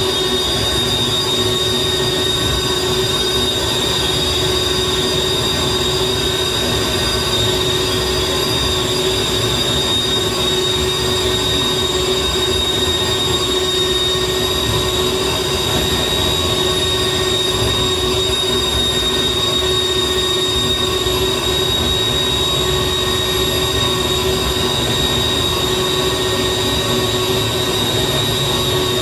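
Live electronic noise music: a dense, unbroken wall of harsh noise with a held high-pitched squeal over a steady lower drone.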